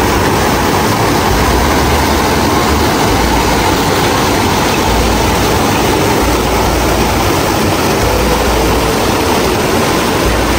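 Water of a small rocky stream rushing down a short cascade over stones, a loud, steady rush.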